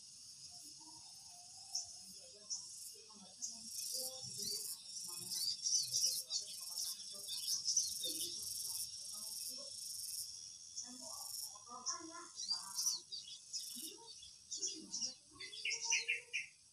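Insects trilling steadily in a high, pulsing band, with birds chirping in quick bursts over it and scattered soft lower sounds.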